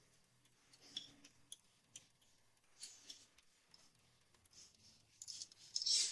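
Faint, sparse drum-kit sounds from an isolated drum track: scattered cymbal washes and light clicks about a second apart, with a louder cymbal wash near the end.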